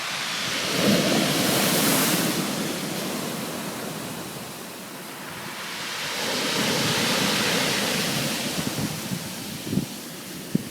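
Surf washing onto a beach, swelling twice as waves come in, about a second in and again around six seconds. Wind buffets the microphone with short low thumps near the end.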